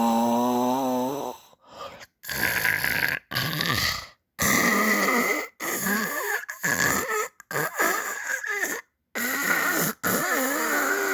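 Snoring in short pieces, broken by several abrupt silent gaps.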